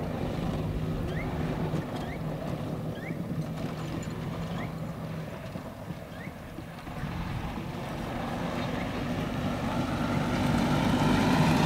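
Golf cart driving, its motor noise swelling as the cart approaches and loudest near the end. Short high chirps repeat several times in the first few seconds.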